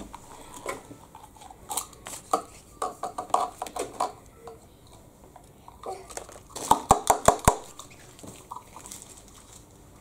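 Small plastic toy jar and its wrapper being handled and opened: scattered clicks and crinkles, with a quick run of sharp plastic clicks about seven seconds in.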